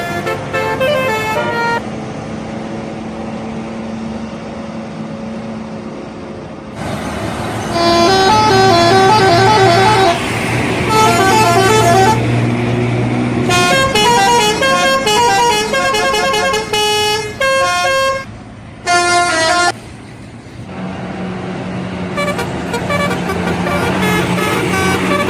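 Indonesian bus telolet horns: multi-tone air horns playing quick melodic tunes in several runs, a short one at the start, longer ones from about seven to seventeen seconds in, and a brief burst near nineteen seconds. Between the tunes the bus engine and road noise run steadily.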